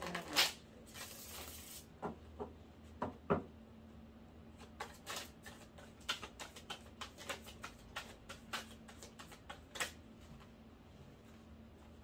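Deck of tarot cards being shuffled by hand: a brief rustling sweep about a second in, a few sharp taps, then a quick run of soft card taps and flicks from about five to ten seconds in.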